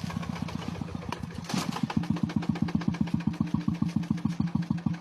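Mazda RX-7 rotary engine idling with a choppy, pulsing brap-brap beat. About a second and a half in there is a brief rush of noise, after which the pulses become louder.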